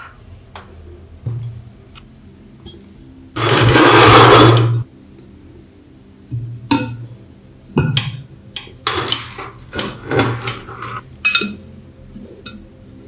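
Clinks, knocks and scrapes of a glass lamp lens and its painted metal bezel ring being handled and fitted together. A loud burst of rushing noise lasts about a second and a half a little before the middle.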